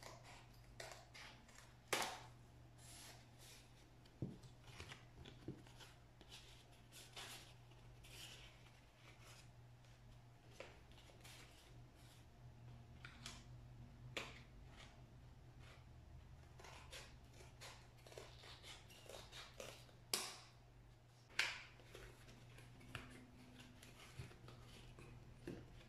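Scissors cutting a paper plate in short, irregular snips, faint, with the paper rustling as it is handled. A steady low hum sits underneath.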